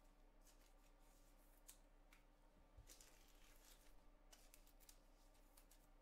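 Near silence, with a few faint rustles and clicks of trading cards being handled.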